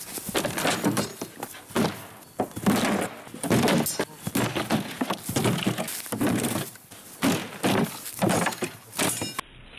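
Sharp steel swords striking round wooden shields and one another: a quick, irregular run of hard wooden thunks and clanks, a dozen or more blows.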